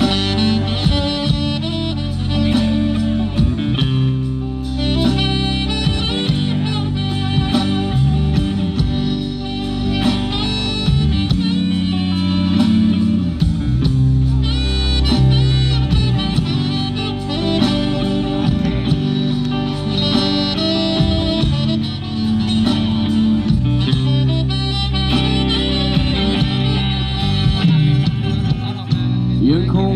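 Live band with electric guitars and drums playing an instrumental passage, led by a wind instrument.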